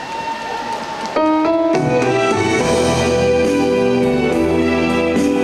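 A song's backing track starting over the PA about a second in: a few quick stepped piano notes, then sustained keyboard chords.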